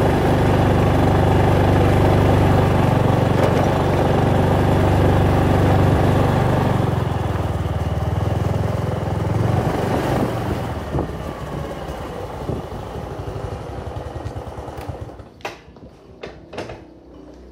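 Motor scooter engine running under way with wind noise. The engine note drops about seven seconds in as the scooter eases off and slows to a stop, fading away, with a few sharp clicks and knocks near the end.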